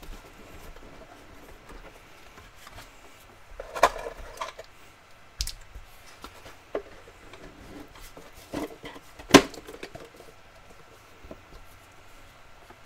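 Hands sliding a sealed basketball card box out of its cardboard sleeve and handling the hard black inner box on a table: scattered taps, knocks and scrapes, the loudest knock about nine seconds in.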